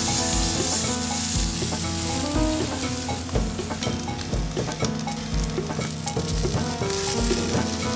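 Steak searing in hot grapeseed oil in a cast iron skillet, a steady sizzle. Background music with a low beat about once a second plays under it.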